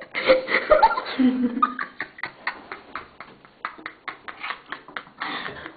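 A child's wordless vocal sounds in the first two seconds, then a quick run of clicks and rubbing as the handheld camera's microphone is handled and brushed against fabric.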